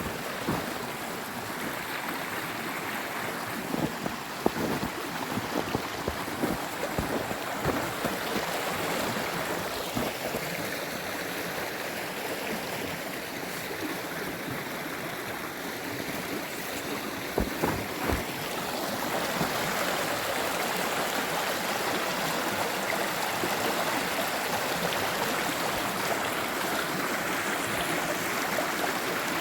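Running water of a stream, a steady rush that grows louder about two-thirds of the way through. A few soft thumps come in the first seconds and again just past the middle.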